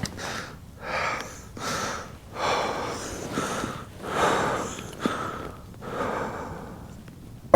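A man breathing heavily through his mouth, in and out in a steady run of about one breath a second.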